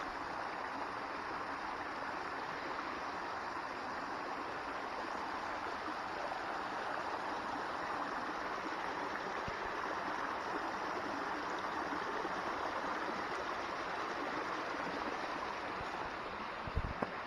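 Steady rushing of running water, like a mountain stream, with a brief knock near the end.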